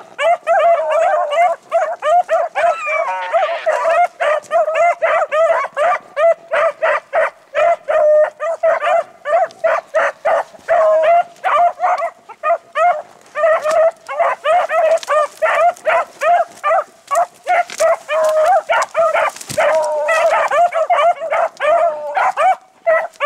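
Beagle hounds baying in a continuous chorus of short barks, several a second: the pack has found a rabbit's scent trail and is running it.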